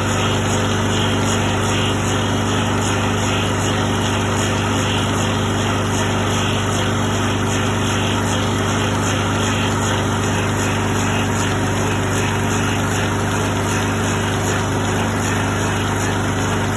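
Single-cylinder water-cooled Kubota diesel engine running steadily, driving a Defiance automatic copying lathe by flat belts while the lathe turns a white ash axe-handle blank; a steady, even hum with no change.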